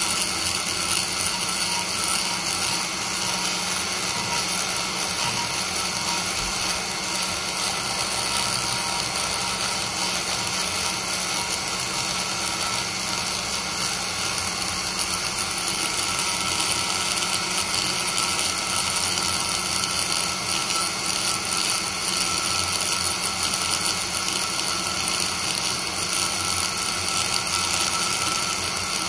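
High-speed straight die grinder with a single-cut burr grinding metal out of a cylinder-head port bowl, a steady high-pitched whine that runs without a break. The cut is roughing out the port to correct core shift.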